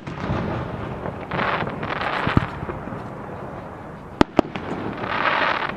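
Aerial firework shells bursting in a display: a sharp bang right at the start, another about two and a half seconds in, and two close together about four seconds in, with crackling noise between the bangs.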